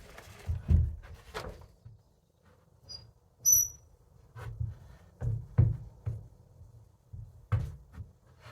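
Scattered knocks and thumps of work on wood and rope, with a brief high squeak about three and a half seconds in.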